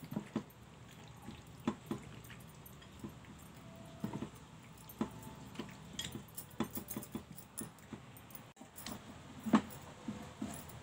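A bare hand squelching a thick yogurt-and-spice marinade through a bowl of small fish: irregular wet squishes and smacks, one sharper smack about nine and a half seconds in.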